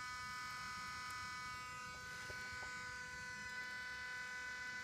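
Steady electric hum with a higher whine in it, coming from under a 2016 Ford F-250 Super Duty after the engine has been shut off. It is loudest around the oil filter, and the owner hopes it is the emissions purge system running after shutdown.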